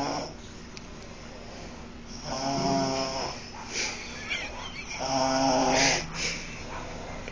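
Snoring: two long, pitched snores about three seconds apart, each lasting about a second, with a hiss over them.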